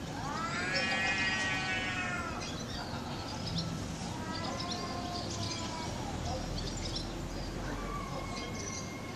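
Cat yowling in three long, drawn-out wails, the first and loudest rising and then sinking in pitch: the caterwaul of a cat squaring off for a fight.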